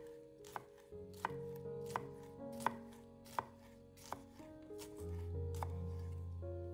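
A kitchen knife cutting food on a cutting board in slow, evenly spaced strokes, about one every two-thirds of a second. Background music with sustained notes plays under it, its low bass note growing louder near the end.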